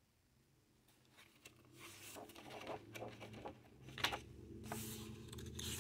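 Pages of a hardcover picture book being handled and turned: paper rustling with small crackles and a few sharp clicks, starting about a second in.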